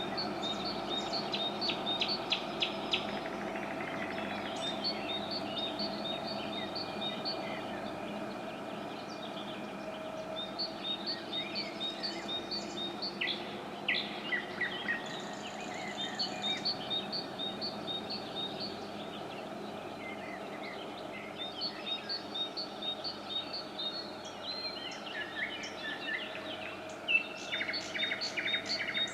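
Songbirds singing in repeated bouts of short, high phrases, with pauses of a second or two between bouts, over a steady low background hum.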